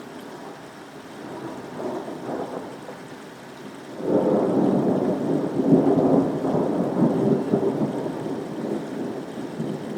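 Thunder rolling over steady rain: a soft rumble swells about two seconds in, then a much louder peal breaks suddenly about four seconds in and rumbles on for several seconds before slowly fading.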